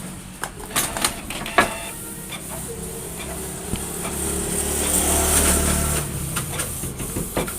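Canon PIXMA G1010 inkjet printer printing: a motor whirring with a series of sharp mechanical clicks, the whirring louder between about four and six seconds in.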